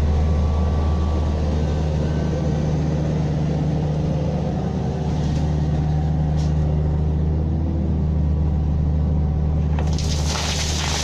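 Diesel engine of an earthmoving machine running steadily at constant speed. A short burst of hissing noise comes in near the end.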